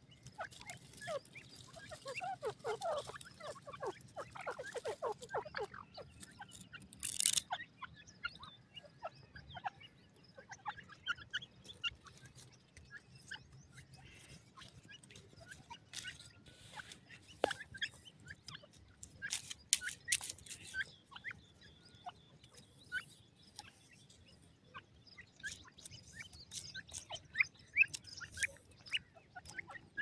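Grey francolin giving soft clucks and short chirps, with a quick run of clucking near the start. Sharp clicks and rustles are scattered throughout, loudest about seven seconds in and again around twenty seconds.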